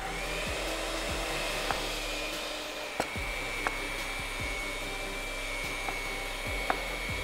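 Electric hand mixer whipping cream in a glass bowl: a steady motor whine, its pitch sagging slightly under load. A few sharp taps of a knife on a plastic cutting board sound over it.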